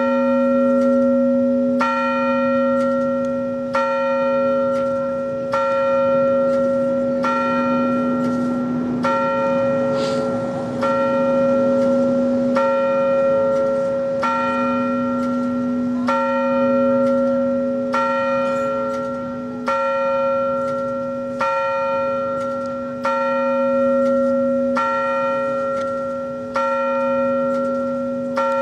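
A 100-year-old bell tolling at an even pace, about one strike every two seconds, each stroke ringing on into the next so that its deep hum never dies away. The strokes count off one ring for each year of the county's existence.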